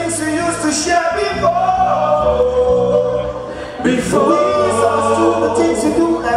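Several men singing together into microphones over a backing track with a bass line and drums.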